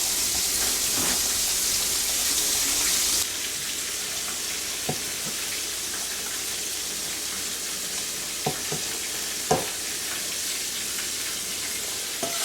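Batter-coated black drum pieces frying in hot oil in a cast iron pan: a steady sizzle that drops in level about three seconds in, with a few light clicks here and there.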